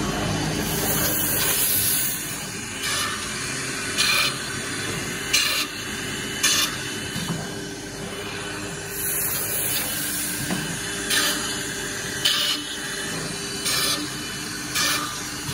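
A series of short, sharp hisses of compressed air from the pneumatic clamp cylinders of a CNC panel-processing machine, over a steady machine hum.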